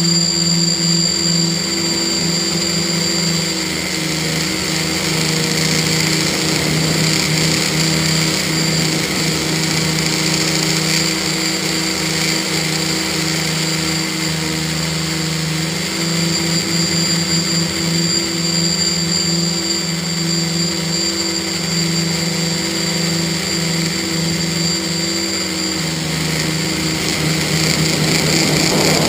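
A multirotor's electric motors and propellers running steadily: a buzzing hum with a high, steady whine over a hiss, with slight rises and falls in level.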